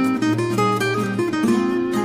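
Background music: an acoustic guitar playing plucked and strummed notes.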